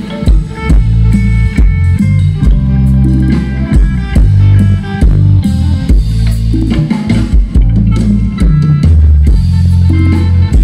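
Live Isan pong lang band playing an upbeat dance tune on drum kit, electric bass and electric guitar, with a heavy, steady bass line.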